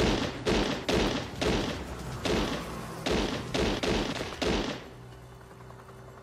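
A handgun fired about nine times in quick succession, roughly two shots a second, each with a short echo. The shooting stops near the end, leaving a low steady hum.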